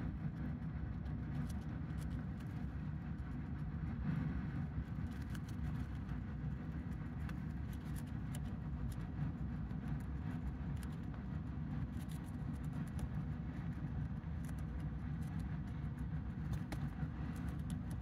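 A dwarf hamster nibbling a cabbage leaf: faint, crisp chewing clicks over a steady low rumble.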